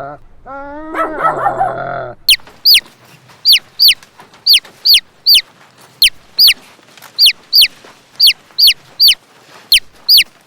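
Chicks peeping: a run of about sixteen short, high chirps, each falling steeply in pitch, about two a second and often in pairs. In the first two seconds, before the peeping, there is a drawn-out pitched animal call.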